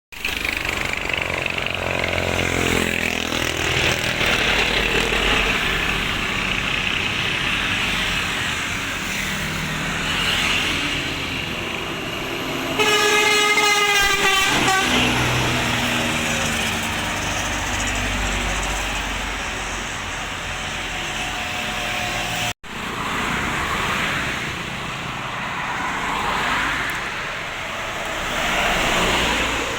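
An East Java bus's musical "tretet" air horn sounds once, loudly, for about a second and a half near the middle. Bus engine and traffic noise runs under it, with an engine revving up near the start.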